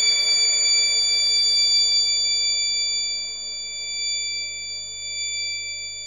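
Abstract experimental electronic music: several steady high synthesizer tones held over a faint pulsing lower pattern, getting quieter about halfway through.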